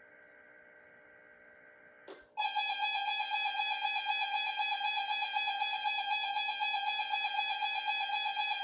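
Weather radio alert tone: a faint steady electronic tone, then about two seconds in a much louder steady electronic tone with strong overtones that holds without a break.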